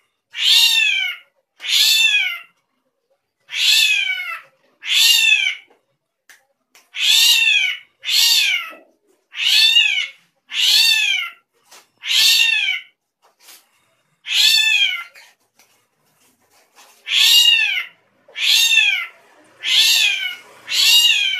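A srigunting krantil (drongo) giving a long series of meow-like calls, each a short falling wail, about one a second with a few short pauses. This is the strange, cat-like sound the bird is known for.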